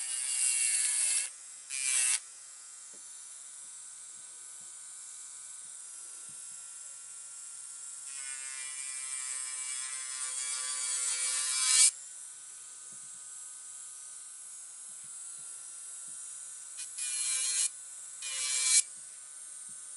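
Pen-style electric nail drill (e-file) running with a steady whine, its bit grinding against an artificial nail in loud passes. There are two short passes at the start, a longer one about eight seconds in that builds for four seconds and cuts off, and two short ones near the end.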